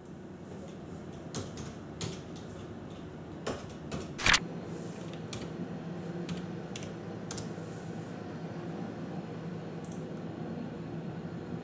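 Typing on a computer keyboard: scattered keystrokes, with one louder click a little over four seconds in, over a steady low hum.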